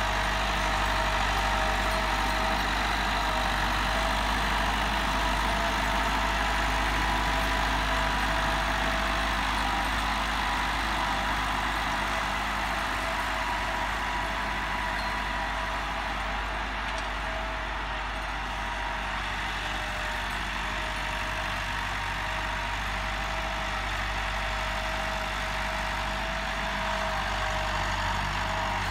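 Massey Ferguson 385's four-cylinder diesel engine running steadily under load as the tractor pulls a tine cultivator through the soil.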